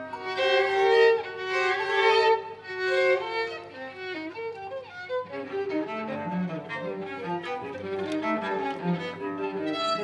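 Violin and other instruments of a small ensemble playing a composed score, the bowed violin to the fore. About five seconds in the music changes to quicker, shorter notes in a lower register.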